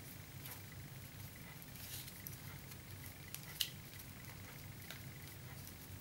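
Rolled paper tubes rustling and ticking faintly as they are woven in and out between the spokes of a paper basket, with one sharper click about three and a half seconds in. A low steady hum runs underneath.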